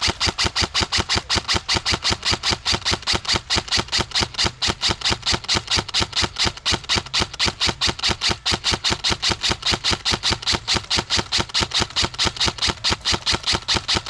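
Airsoft gun firing one long, even full-auto string of about six shots a second, sharp clicks that run unbroken for some fifteen seconds.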